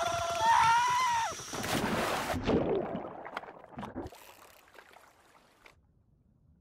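A cartoon worm's scream, wavering up and down in pitch, breaks off about a second and a half in as the hook hits the water with a splash, followed by sloshing and scattered bubbly plops that fade away as it sinks.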